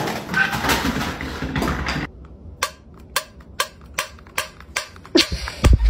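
A loud, jumbled noisy stretch for about two seconds. Then a finger clicks on the pull-tab lid of a metal cat food tin: sharp, ringing clicks, about two a second.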